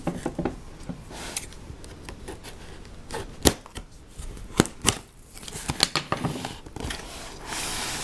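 Cardboard Lego set box being opened and handled: scattered sharp clicks and taps, with a few louder snaps around the middle and a rustle of cardboard near the end.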